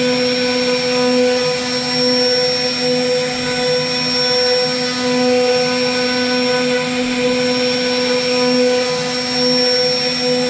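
CNC router spindle running at a steady high whine while its bit carves a relief pattern into a wooden panel, with a continuous hiss from the cut.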